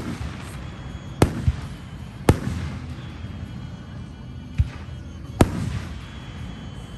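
Aerial fireworks shells bursting: about six sharp bangs at uneven intervals, two of them close together, over a steady low background rumble.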